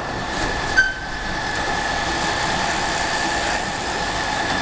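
Portable belt stacker conveyor running steadily with sacks on its belt: a constant mechanical whir from the drive and belt rollers with a steady high whine, and a brief squeak about a second in.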